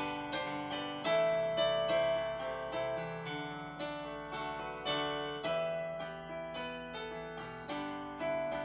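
Electronic keyboard played with a piano sound: chords and melody notes struck about once or twice a second, each ringing and fading before the next.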